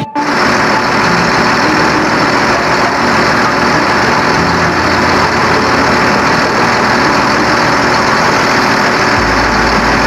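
Diesel farm tractors running steadily: a four-wheel-drive tractor packing chopped corn silage on the pile, heard as a loud, noisy drone.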